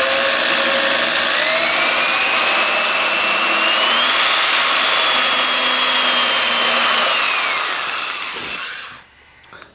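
Power drill running in reverse with a left-hand drill bit in a broken steel bolt, the bit no longer catching as the loosened bolt backs out. The motor whine rises in pitch about a second and a half in, holds steady, then winds down and stops near the end.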